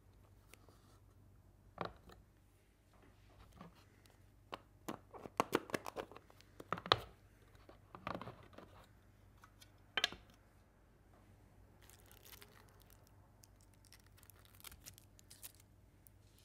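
Plastic packaging being handled: a bubble-wrap sheet crinkling and rustling as it is pulled from around a model locomotive in a clear plastic case, with several sharp clicks of the hard plastic case. The busiest crackling comes in the middle, with a sharp click a few seconds later and faint rustles near the end.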